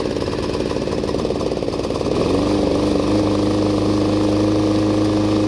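6 hp Subaru engine on a Snapper commercial walk-behind mower running after a pull start, on gas again now that the carburettor has been cleaned. It runs roughly at first, then about two seconds in it picks up speed and settles into a steady, even drone.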